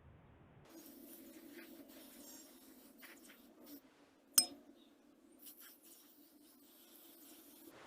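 A few light taps of small hard objects, with one sharp, ringing clink a little over four seconds in, over a low steady hum.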